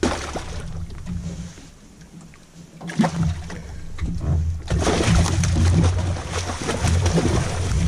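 Hooked bowfin thrashing and splashing at the water's surface as it is grabbed by hand at a dock's edge; the splashing turns loud and continuous about five seconds in, after a single sharp knock.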